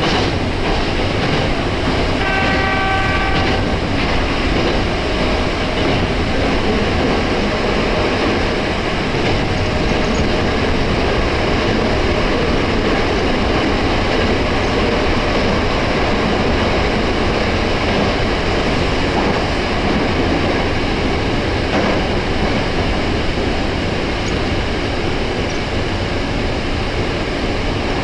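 Nose Electric Railway 1700 series electric train running along the line, a steady rumble of wheels on rail and running gear heard from inside the front car. About two seconds in, a single short horn tone sounds for over a second.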